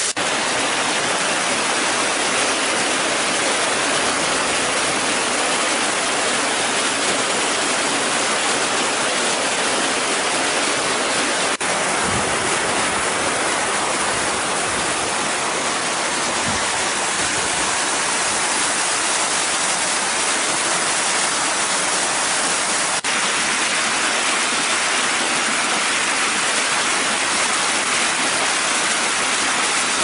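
A waterfall about 20 m high pouring over limestone and rock: a loud, steady rush of falling water that does not change.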